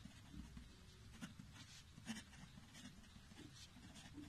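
Faint scratching of a pen writing on paper: a string of short, irregular strokes over a low background hum.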